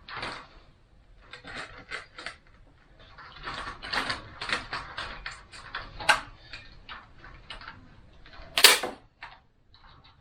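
Chicken wire being worked against a wooden pen frame, with irregular light rattling and clicking, then a sharp snap near the end from a staple gun firing a staple into the wood.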